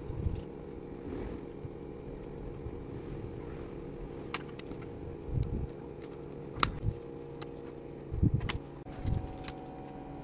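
Small hard parts being handled, making scattered sharp clicks and a few soft knocks over a steady low hum.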